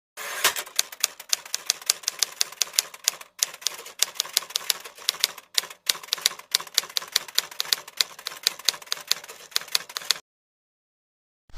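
Quick run of sharp clacking key strikes, typing-like, about three or four a second with a few short pauses; it stops about ten seconds in.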